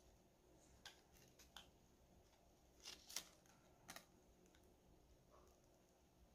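Near silence broken by a few faint, irregular clicks and taps of packaging being handled during an unboxing.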